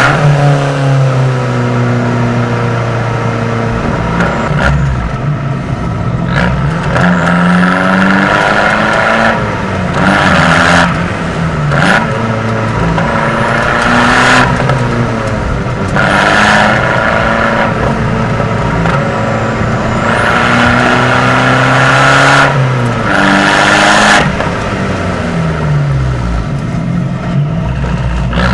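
Abarth 595's turbocharged four-cylinder engine through a Record Monza exhaust, driven hard through the gears. The pitch climbs and drops at each shift, with loud surges of exhaust noise under throttle.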